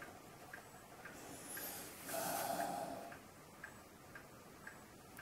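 A mechanical clock ticking faintly and evenly, about two ticks a second. A brief soft hiss comes about two seconds in.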